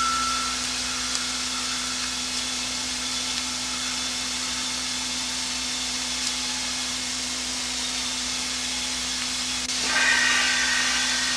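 Steady hiss with a low, even hum underneath and a few faint clicks. About ten seconds in, a higher tone with several pitches comes in over the hiss and the sound gets louder.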